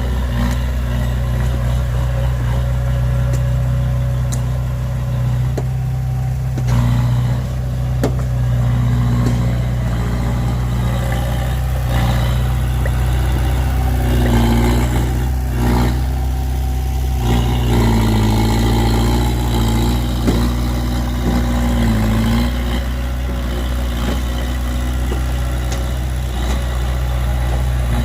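Heavy diesel engine running steadily, revved up briefly about halfway through and again for several seconds a little later, with a few sharp knocks.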